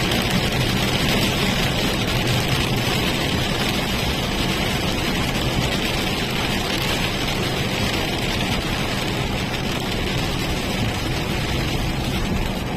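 Steady driving noise inside a moving car: a low rumble of tyres and engine under an even hiss.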